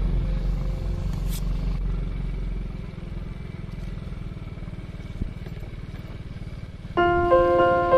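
Motorcycle engine running steadily with a low hum, loud for the first two to three seconds and then fainter. Piano music comes in about seven seconds in.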